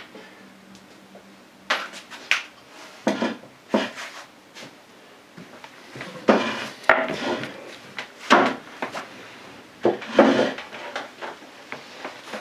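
Pans and kitchen utensils being handled: an irregular string of knocks and clatters, growing busier in the second half.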